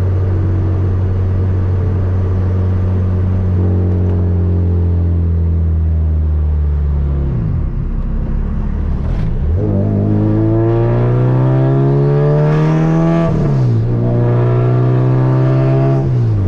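Honda Civic hatchback engine and exhaust heard from inside the cabin. It holds steady revs for several seconds, then pulls up through the revs twice with a rising pitch, each run ending in a sudden drop as the driver shifts up.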